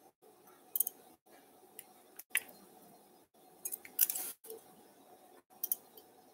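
Steel surgical instruments clicking and snipping in short, sharp bursts, about six times, loudest about four seconds in, over a faint steady hum.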